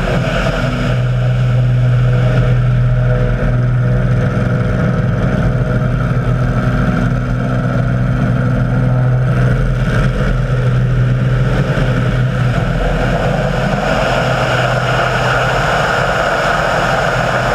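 Model aircraft's piston engine running at a steady pitch.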